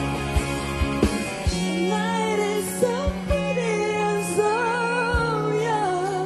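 Live rock band with a woman singing lead. Drum beats in the first second or so, then a long held bass note under a sustained, wavering vocal line.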